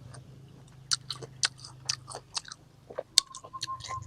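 Close-up chewing and biting of crisp raw mango, with irregular sharp crunching clicks.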